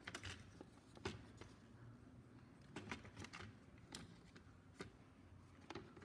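Faint scattered clicks and taps of plastic parts being handled, as a pressure cooker's plastic lid assembly is turned over in the hands.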